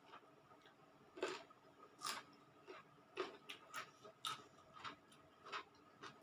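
A person chewing food close to the microphone: faint, irregular crunches and wet clicks, about one every half second to a second.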